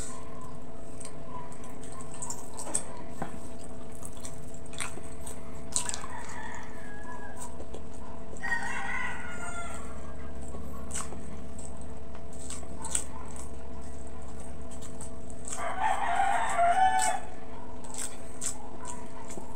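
Wet chewing and lip-smacking on braised pork hock, with short clicks throughout. A rooster crows in the background twice, about eight seconds in and again, louder, near the end, over a steady low hum.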